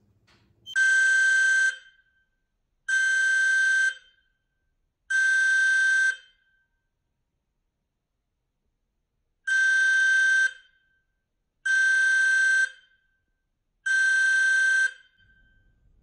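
Aico Ei208 carbon monoxide alarm sounding under a test-button press: a steady high beep about a second long, three times, a pause, then three more.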